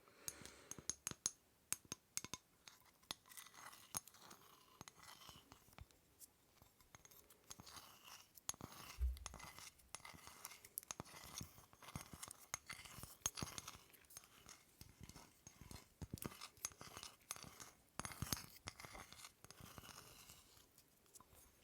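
Small objects handled close to the microphone: a dense run of quick clicks, taps and scratchy crackles, with a low bump about nine seconds in.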